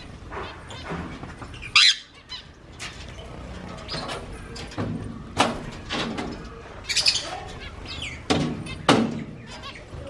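Small aviary birds, finches among them, chirping and calling in short separate notes, with brief wing flutters. The loudest calls come about two, five, seven and nine seconds in.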